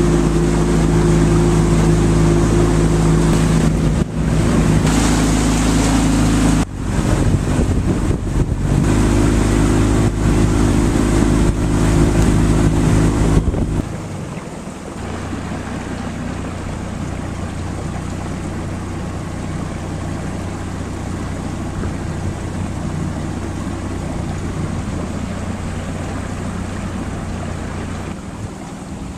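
Small motorboat's engine running at cruising speed, with wind buffeting the microphone. About halfway through it is throttled back to a lower, quieter steady hum at slow speed.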